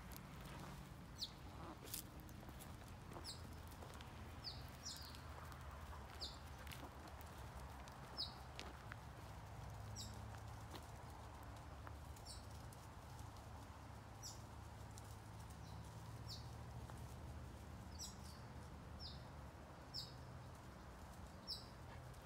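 A bird calling over and over in short, high, downward-sliding notes every second or two, over a faint low steady rumble.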